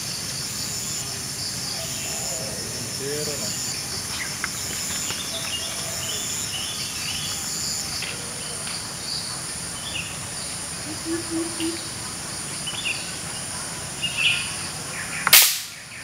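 Steady high-pitched insect chorus of crickets or cicadas, pulsing on and off during the first half. Near the end there is one loud, sharp crack.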